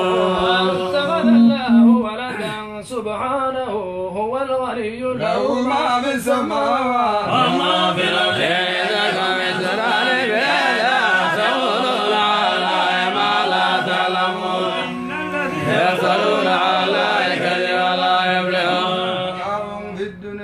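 Unaccompanied male voice chanting in a slow, wavering melody with long held notes. It opens on the last word of a Quran recitation phrase ("yasma'un").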